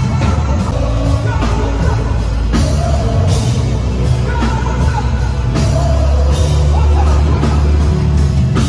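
Loud band music with singing over heavy bass and drums.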